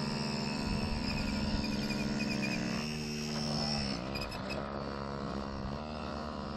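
Small mini dirt bike engine running with a steady buzzing note; about four seconds in the pitch dips and climbs again as the rider eases off and opens the throttle.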